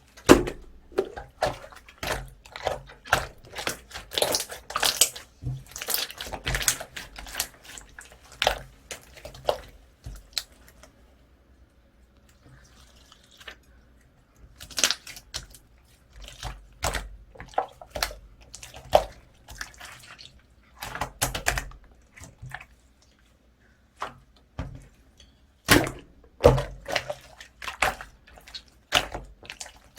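Hands kneading, pressing and stretching slime, giving dense, irregular runs of sticky clicks and pops, with a quieter stretch about a third of the way in and a brief pause later on.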